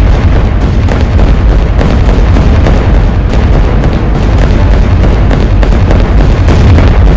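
Aircraft flying overhead: a loud, steady low rumble with continuous crackle and no break.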